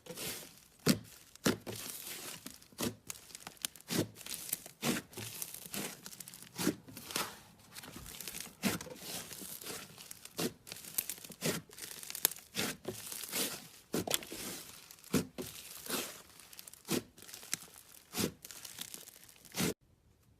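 Slime being squished and stretched by hand, giving a run of irregular crackling pops and tearing, sticky noises, several a second, that stop just before the end.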